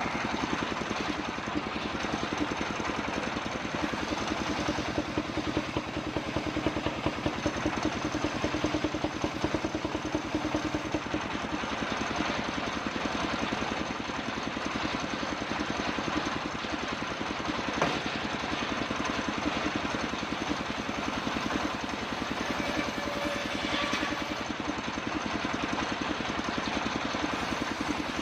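Engine of a homemade circular sawmill running steadily with a fast, even beat. A single sharp click comes about two-thirds of the way through.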